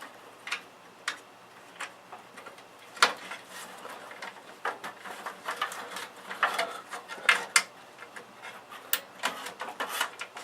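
Irregular clicks and clatter of plastic cable connectors and cables being handled while a SATA power cable is plugged into a semi-modular PC power supply.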